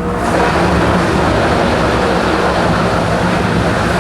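Large wood chipper running under load while chipping round wood: a steady engine hum beneath a loud, noisy rush of chipping that swells just after the start.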